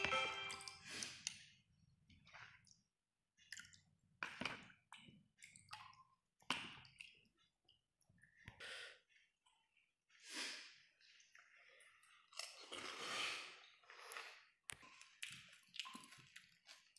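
Steel spoon stirring tamarind water in a glass bowl, with scraping and small splashes coming in short, irregular bursts.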